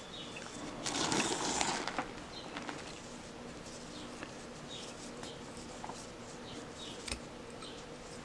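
Hand crochet in cotton twine: soft rustling of the yarn and work being handled, louder for about a second near the start, with faint light ticks and one sharper click near the end.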